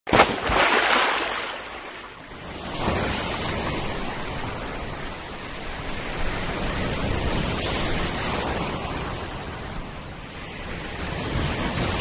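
Sea surf breaking and washing close by, a rushing noise that swells loudest just after the start, eases briefly, then runs on as a steady wash of waves.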